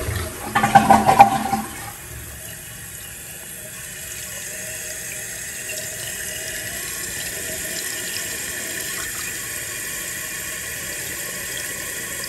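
Toilet flushing, the bowl gurgling as it drains for about the first two seconds, then a steady hiss of water as the tank refills through a newly installed fill valve on a test flush.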